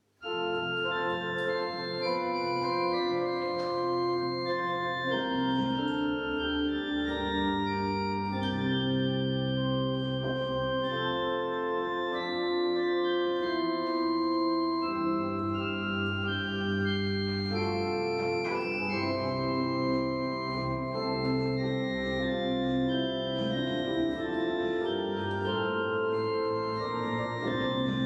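Organ music: a slow instrumental piece of held chords that change every second or two, starting suddenly right after the spoken blessing.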